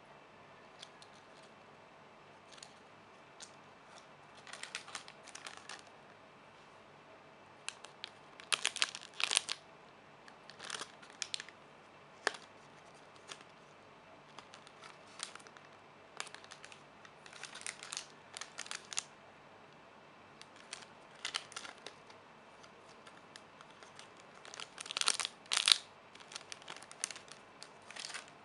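Plastic packaging crinkling in short irregular bursts as it is handled, with the loudest bunches about nine seconds in and again near the end.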